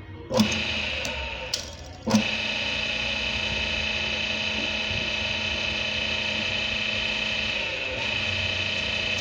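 Small electric motor switched on with a click, cut off briefly, then clicked on again about two seconds in, running with a steady whining hum.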